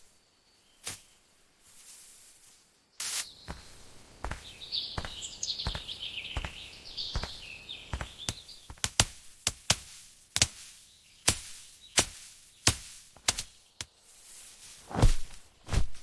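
A series of sharp chops and thuds, scattered at first and then coming about once every three-quarters of a second, the heaviest near the end. Birds chirp from about four to eight seconds in.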